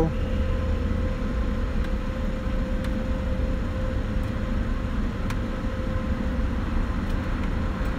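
Steady low hum inside the cabin of a stationary BMW Z4 with its engine idling, a faint steady whine over it. Two faint clicks come about three and five seconds in as the overhead light switches are pressed.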